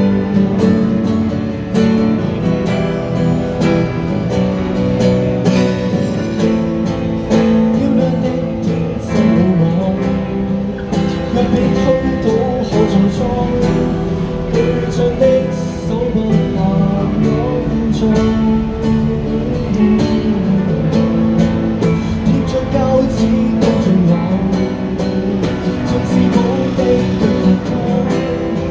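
Live acoustic guitar music without vocals: a steady strummed accompaniment with a picked melody line over it, an instrumental break in a song.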